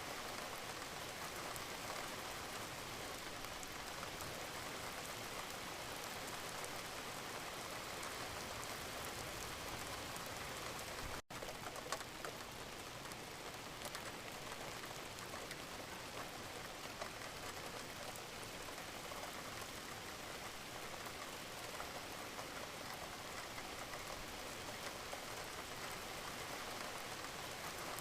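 Steady rain falling: an even hiss of rainfall with scattered individual drop clicks. The sound drops out for a split second about eleven seconds in, followed by one sharper click.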